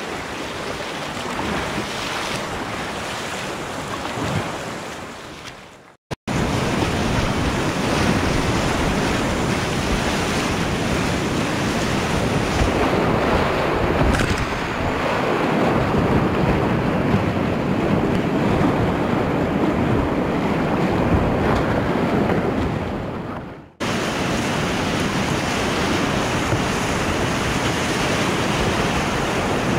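Whitewater rapids rushing and splashing around a kayak as it runs through, with paddle strokes and waves breaking over the bow and spray hitting the microphone. The roar cuts out abruptly twice for a moment, about six seconds in and again near the three-quarter mark.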